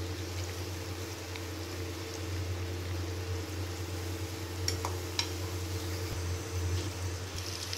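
Donuts deep-frying in oil over a low gas flame: the oil bubbling and sizzling steadily over a low hum. Two light clicks of a metal spatula against the pan come about five seconds in.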